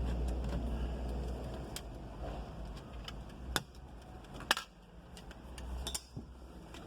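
Scattered sharp clicks and light knocks of hand tools and plastic dashboard trim being handled while the screen surround is unscrewed and pulled off, over a steady low hum. The clearest knocks come about halfway through and again near the end.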